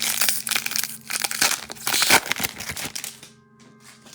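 Crinkly plastic wrapping on football trading-card packs being torn open and crumpled by hand, a dense crackling that stops about three seconds in.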